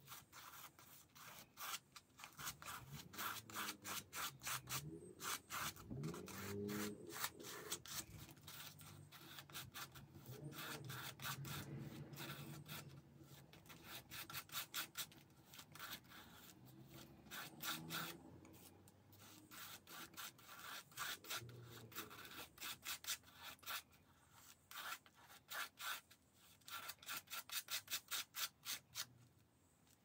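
Palette knife scraping texture paste of clear gesso and baking powder across a stencil onto a paper page, in many quick repeated strokes.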